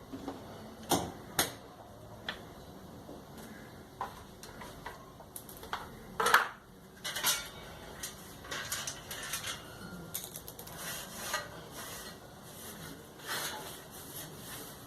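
Irregular clinks, taps and knocks of tools and metal parts being handled, with the loudest knock about six seconds in.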